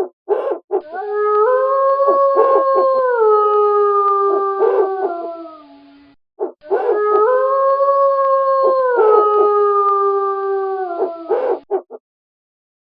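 Wolf howling: two long howls, each starting low, stepping up, holding, then sliding down in pitch, with short yips around them. The second howl is the same recording repeated.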